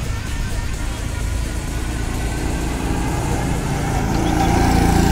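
Go-kart engine running on the track, getting louder about four seconds in as a kart comes nearer.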